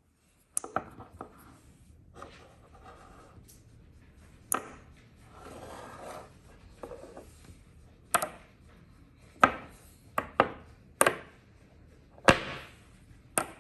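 Small magnets and metal parts of a copper fidget slider clicking and snapping together as they are handled and rearranged. Sharp clicks come at irregular intervals, with light rubbing and sliding between them.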